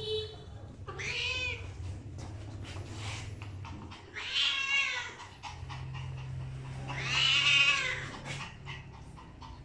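A cat yowling three times while a small dog mounts it, each call a drawn-out, rising-and-falling wail, the third the loudest and longest. Light clicks and scuffs come between the calls.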